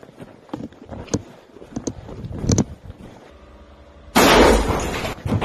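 Footsteps and gear knocking on rubble, then about four seconds in a sudden, very loud close explosion: a blast of noise that dies away over about a second.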